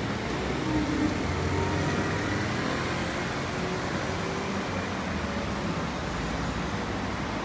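Road traffic noise, with a motor vehicle's engine running close by and swelling slightly a second or two in.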